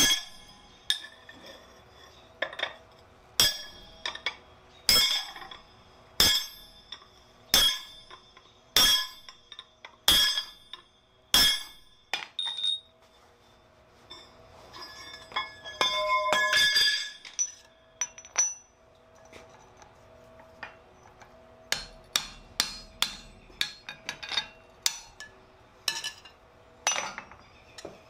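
Blacksmith's hammer striking a handled top tool held on the red-hot crowbar on the anvil, about one blow every second and a half, each with a short metallic ring. After a pause with scattered clinks and a brief noisy scrape, a faster run of lighter hammer blows on the steel.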